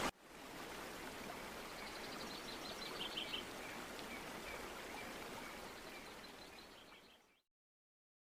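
Nature ambience: a steady rushing hiss with birds chirping now and then, fading out about seven seconds in.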